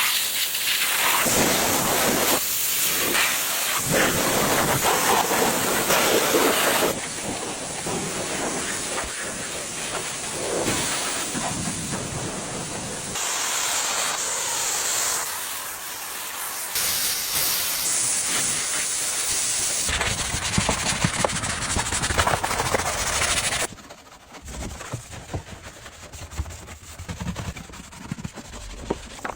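Pressure washer spraying water, a steady loud hiss that changes abruptly several times as the footage is cut. It drops to a quieter, spattering sound about three quarters of the way through.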